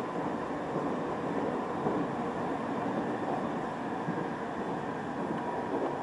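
Steady running noise of a local train on the Ou Main Line, heard from inside the carriage: wheels on the rails with an even, unbroken sound.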